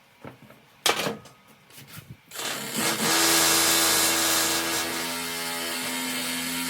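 A knock about a second in, then a reciprocating saw (Sawzall) with a wood blade starts up and runs steadily, cutting away cured expanding foam; its hum steps down a little in pitch about halfway through.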